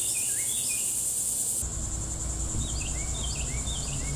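Steady high-pitched drone of insects, with a bird calling in quick runs of short swooping chirps near the start and again in the second half.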